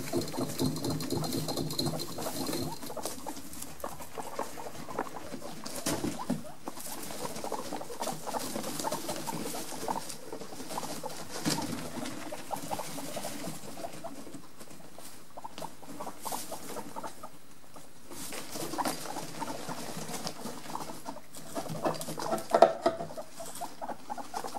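Guinea pigs scurrying and rustling about on wood-shaving bedding, a busy patter of many small clicks and rustles, with one sharper knock near the end.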